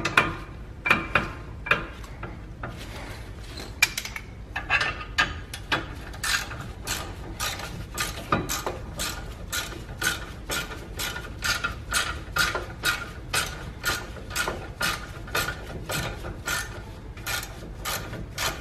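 Socket ratchet clicking as it backs out an already-loosened 17 mm brake caliper bracket bolt. A few scattered clicks come first, then a steady run of about three clicks a second from about four seconds in.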